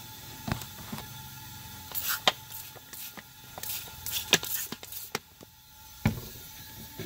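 Hand spray bottle squirting soapy water onto truck boost pipes to find leaks: several short spritzes with the trigger clicking, along with a few knocks from handling around the engine.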